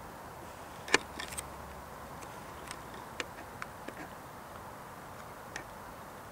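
Irregular sharp clicks over steady background noise: a loud one about a second in, a few quick ones right after it, then single clicks every half second to a second, thinning out near the end.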